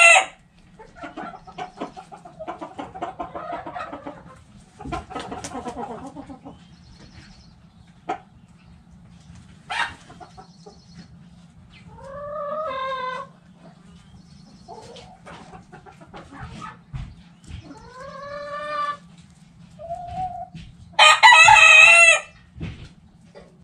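Hens clucking and calling, with a couple of drawn-out calls in the middle, then a rooster crowing loudly once near the end.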